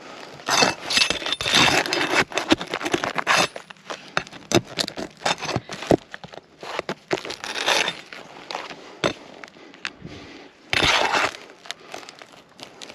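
Roofing nails being pried out from under asphalt shingles: irregular bursts of metal scraping and clinking, with the stiff shingles crackling and crinkling as they are lifted.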